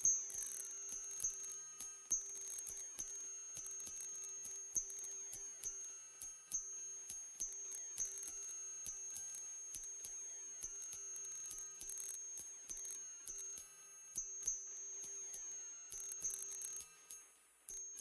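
Ultra high-pitched electronic tinnitus-relief tone, held steady and loud, with a much fainter lower tone beneath it and small flickers in level throughout.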